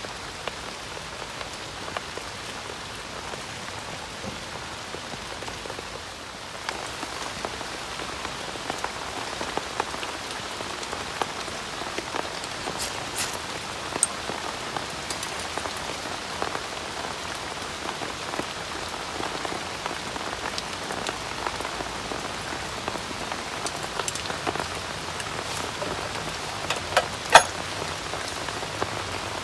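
Steady rain with many small drops ticking close by, growing a little heavier about six seconds in. Near the end there is one sharper crack.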